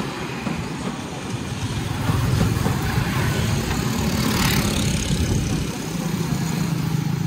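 Small motorbike and scooter engines running as they pass close by on the road, louder from about two seconds in. There is a brief rush of noise a little after the middle as one goes past.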